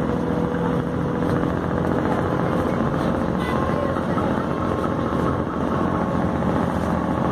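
A vehicle ferry's engine running, a loud, even drone that holds steady throughout.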